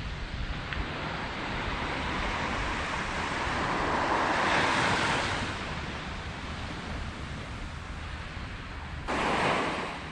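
Surf breaking on a sand beach, with wind on the microphone. The wash swells up around the middle, and a louder surge comes in suddenly near the end.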